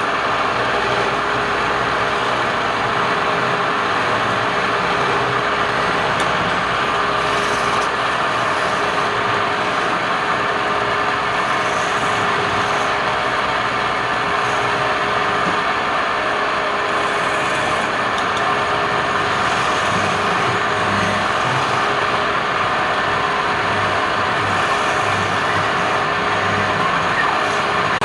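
Wood lathe running steadily: an even hum and hiss that holds at one level throughout.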